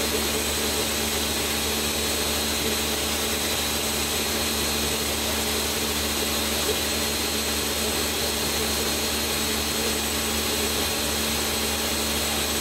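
Countertop blender motor running steadily at high speed, blending a jar of walnut and hemp milk.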